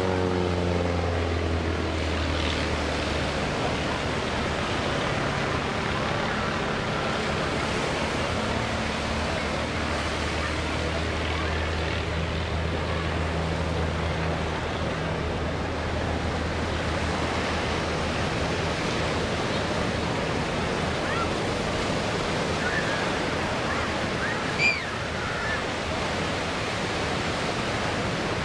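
Pitts aerobatic biplane's engine droning in the distance. Its pitch falls as it passes at the start, and the low hum fades out about two-thirds of the way through. A steady rushing background noise runs throughout, and a single sharp click comes near the end.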